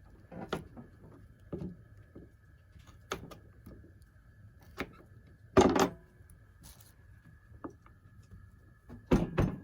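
Scattered light clicks and knocks of kitchen handling while butter is added to a cotton bag of soaked split peas, with one louder knock a little past halfway and a few more near the end. A faint steady high whine runs underneath.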